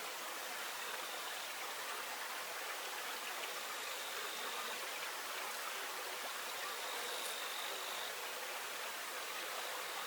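Steady rushing of flowing river water. A faint, thin high tone comes and goes a few times over it.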